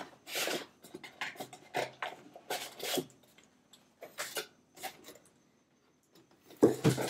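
Cardboard box and molded pulp inserts rustling and scraping in a series of short bursts as items are taken out, then a brief pause and a louder handling noise near the end.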